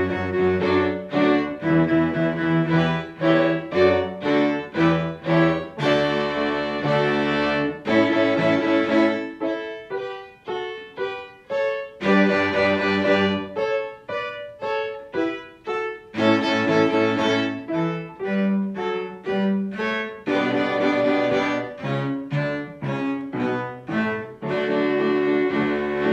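A small string ensemble of violins, viola and cellos, one cello taking the bass line, plays a lively dance tune in short, separated notes, accompanied by piano. For several seconds in the middle the bass line drops out and the texture thins, then the full ensemble comes back in.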